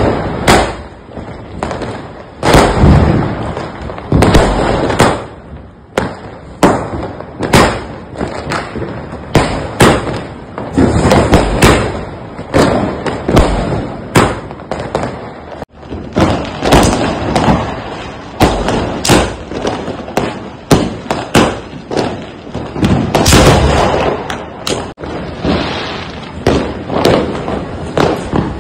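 Firecrackers and fireworks going off: many sharp bangs in quick, irregular succession, some overlapping.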